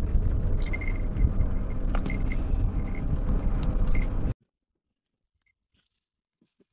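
Wind buffeting and road rumble of a moving car heard through its open side window, which cuts off abruptly about four seconds in, leaving near silence.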